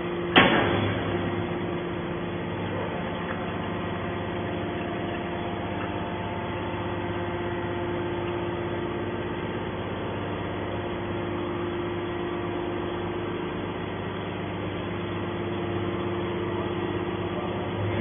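TCM hydraulic scrap metal baler running steadily, its hydraulic pump and ram humming as the compressed scrap bale is slowly pushed out of the chamber. A single loud metallic clank about half a second in.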